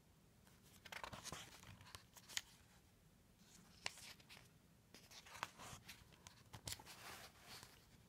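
Pages of a picture book being turned by hand: faint paper rustling in several short bursts, with a few light clicks.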